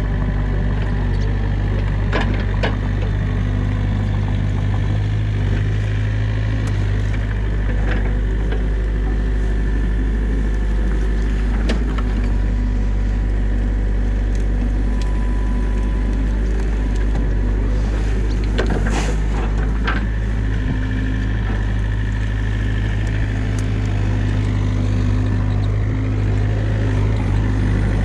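New Holland mini excavator's diesel engine running steadily under hydraulic load as the arm and bucket dig out a beaver dam, with a few short knocks and scrapes from the bucket, a cluster of them about two-thirds of the way through.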